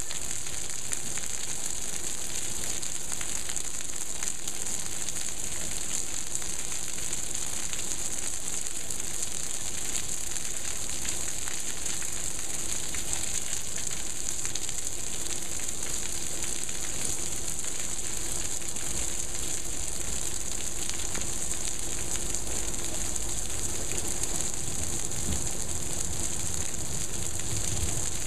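Heavy monsoon rain falling steadily: a dense, even hiss of countless drops, strongest in the treble, with a fine crackle.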